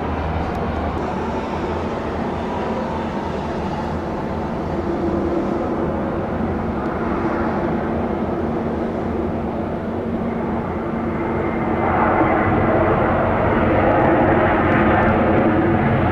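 Airbus A320-232 with IAE V2500 jet engines landing: steady jet engine noise that swells louder about twelve seconds in as the airliner rolls out after touchdown.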